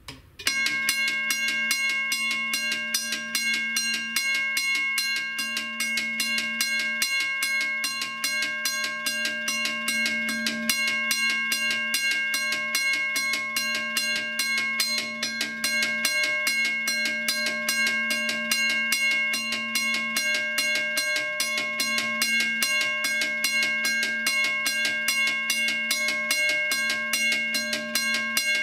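Union Switch & Signal Model 15-A teardrop railroad crossing bell, dated 1965, ringing continuously. Its electric striker hits the gong about twice a second, starting about half a second in, and each strike rings on into the next.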